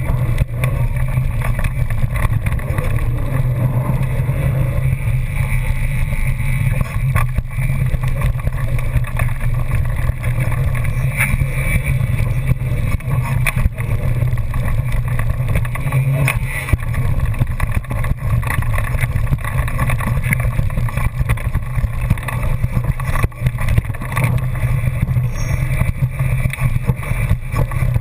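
Mountain bike riding fast down a rough dirt trail: a steady wind rumble on the microphone, with tyre noise on dirt and frequent short rattles and knocks from the bike over the bumps.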